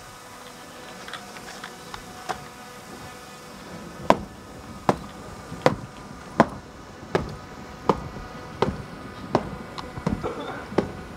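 Sharp thumps at a steady marching pace, about one every three quarters of a second, begin about four seconds in, over a faint steady hum. A few lighter clicks come before them.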